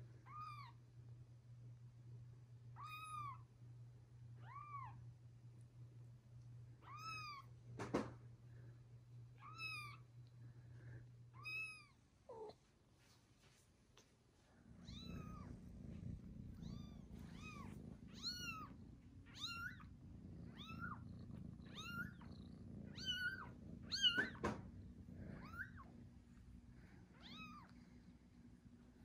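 Newborn kittens mewing: short, high-pitched cries that rise and fall, one every second or two at first and then faster and overlapping after a brief pause about halfway. A low steady hum runs underneath.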